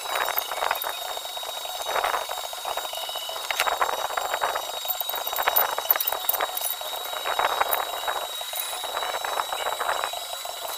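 Arc welder tack-welding stainless steel tube pieces, the arc crackling and sizzling in short runs every second or two, over a steady high-pitched whine.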